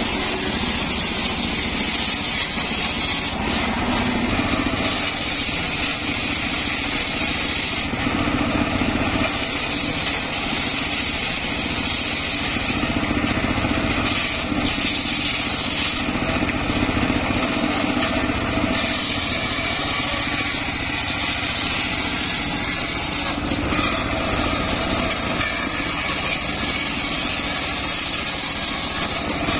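Homemade engine-driven circular saw bench running steadily while its blade rips waru wood into battens. The engine and blade run without a break, and the cutting sound changes every few seconds as boards are fed through.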